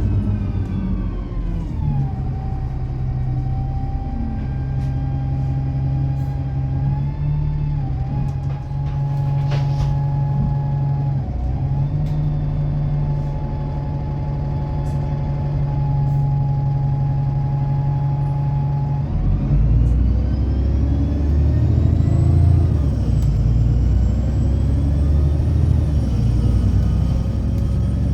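Alexander Dennis Enviro 300 bus running with a pronounced whine over the engine rumble. The whine falls in pitch at the start and holds steady for most of the stretch. About two-thirds of the way in it climbs sharply as the engine works harder, the bus pulling away.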